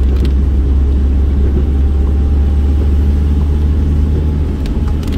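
Steady low rumble of a car's engine and tyres on a rain-wet road, heard from inside the cabin.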